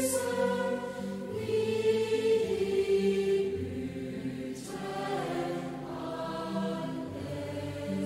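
Slow choral music: voices holding long chords that change every second or two.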